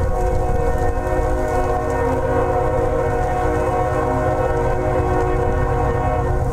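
Lead locomotive's air horn, an NS GE ES44AC, sounding one long held chord for the grade crossing, then cutting off.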